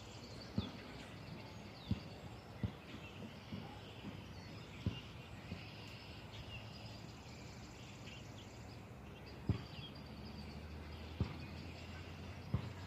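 Outdoor ambience with small birds chirping in the background, broken by several brief dull thumps.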